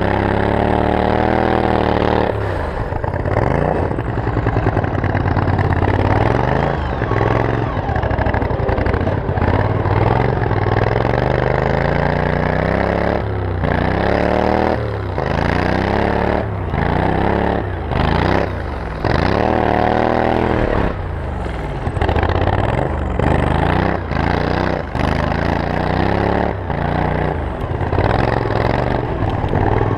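Turbocharged 26 hp Briggs & Stratton 724cc V-twin engine on a lawn mower, running hard and then revving up and down over and over. Through the second half the throttle is let off and opened again about once a second.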